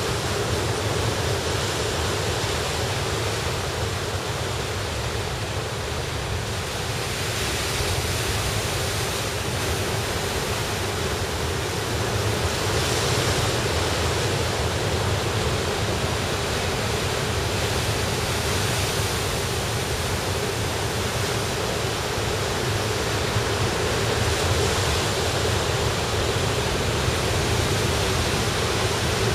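Ocean surf breaking over rocks: a continuous rushing wash of white water that swells a few times as bigger waves come in.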